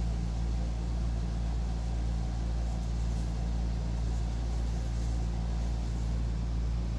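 A steady low mechanical hum, even and unchanging throughout.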